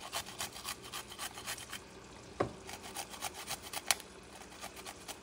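A garlic clove being grated on a small handheld metal grater: a rasping scrape repeated about three strokes a second, with a couple of sharper clicks midway and the strokes growing weaker near the end.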